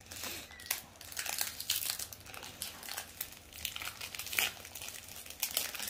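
Foil wrapper of a Pokémon trading-card booster pack crinkling and tearing as it is opened by hand, in an irregular run of crackles.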